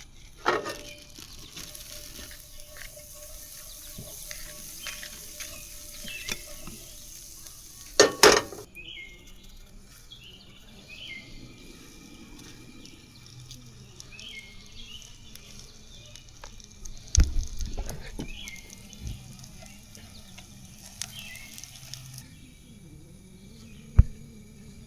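Food sizzling as it cooks, with a few sharp knocks and clinks of utensils.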